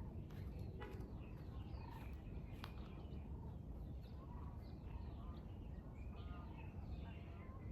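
Many birds chirping and calling at once, short quick overlapping notes, over a low steady rumble.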